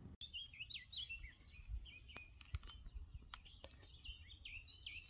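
A small bird chirping over and over: a run of short, high chirps, each quickly dipping in pitch, faint, with a few soft taps in between.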